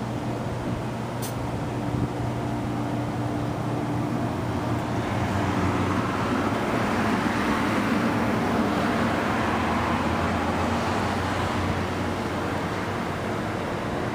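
Train noise at a station platform: a steady low hum, with a rushing sound that builds up over several seconds and fades again.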